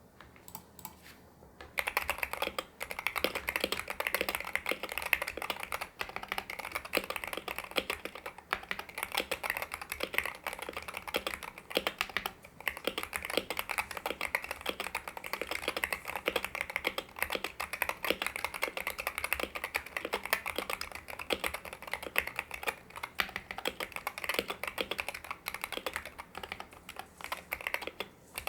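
Fast, continuous typing on a stock Wooting 60HE keyboard: Gateron x Lekker linear switches with 60 cN springs, double-shot PBT keycaps, a steel plate, and Poron and EPDM foam. A few light keystrokes come first. Dense typing starts about two seconds in and runs on with a few short pauses.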